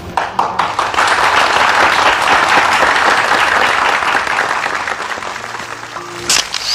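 Studio audience and guests applauding, swelling about a second in and slowly thinning out toward the end.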